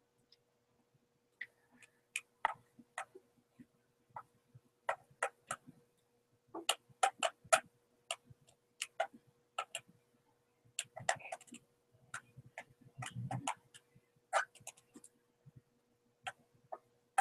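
Irregular sharp clicks and light taps at a computer desk, from the hands working the pointing device and keys while painting. A faint steady hum runs underneath.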